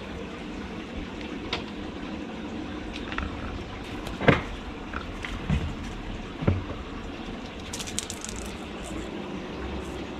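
Kittens playing on a concrete floor, with a few scattered knocks and thumps as they scamper and bump about, the loudest about four seconds in and a patter of light clicks near the end. Under it all runs a steady rushing background noise.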